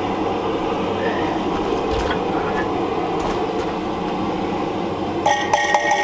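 Steady background rumble, then from about five seconds in a quick run of light metallic clinks with a short ringing tone, from the steel parts of a hand-forged oil lamp being handled in a vise.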